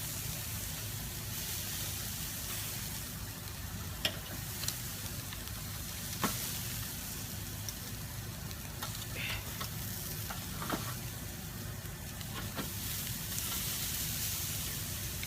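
Pork spare ribs sizzling steadily on a grill, with a few sharp clicks now and then.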